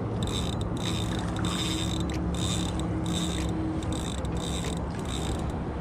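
Penn Fierce III 6000 spinning reel being cranked hard, its gears whirring in even pulses about twice a second with each turn of the handle, as line is wound in against a hooked snook.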